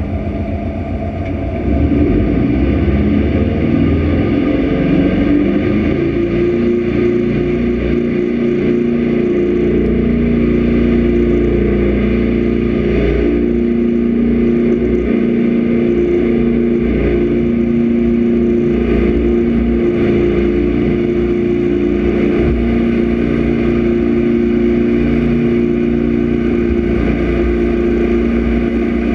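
Jet boat engine throttling up about two seconds in, its pitch climbing for a few seconds, then running steadily at speed. Wind and water rush sit beneath it.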